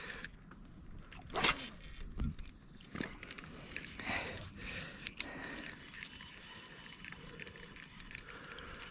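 Light scrapes, clicks and rattles of fishing gear being handled in a kayak, coming in scattered short bursts with the loudest about one and a half seconds in.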